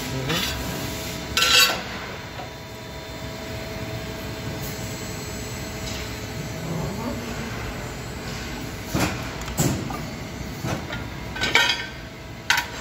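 TRUMPF TruBend 3120 hydraulic press brake running with a steady hum and a faint steady tone. Sheet-metal parts clank sharply against the tooling several times, once early and then in a cluster over the last few seconds.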